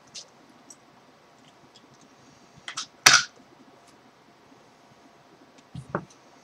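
Small clicks and handling noises while pipe smoking, with one short, sharp hiss about three seconds in, the loudest sound, and a dull low knock near the end.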